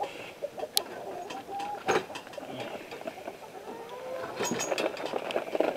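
Chickens clucking, with sharp metallic clicks and rattles from the wire rooster cage as its door is opened; the loudest click comes about two seconds in, and a cluster of them near the end.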